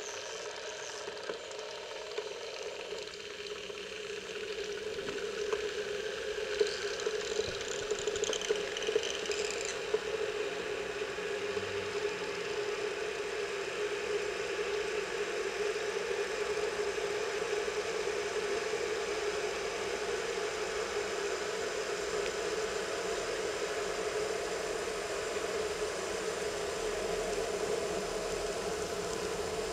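A steady mechanical hum over a background of noise, building up over the first few seconds, with brief high chirping about seven to ten seconds in.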